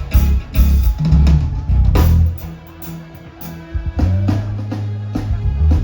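Live dancehall band music with no vocals: heavy bass and drum kit hits. The music drops back for a moment about two seconds in and the bass and drums come back in about four seconds in.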